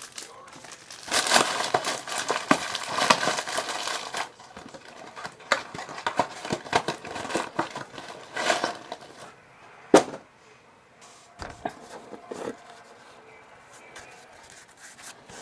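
Trading-card pack wrappers crinkling and tearing as packs are opened and cards handled, in bursts during the first few seconds, then scattered rustles and clicks with one sharp tap about ten seconds in.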